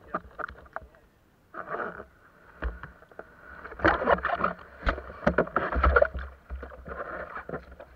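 Water sounds from a kayak's deck camera as a capsized kayak is rolled back upright: muffled sloshing and knocks underwater, then loud splashing and water pouring off the deck as the bow breaks the surface, about halfway through.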